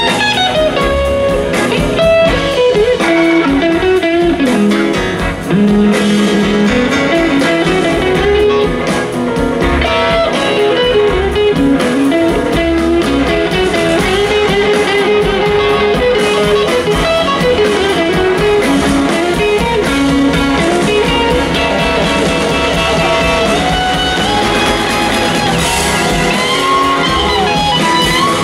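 Live electric blues band playing an instrumental passage: an electric guitar lead with bent, gliding notes over drums and bass.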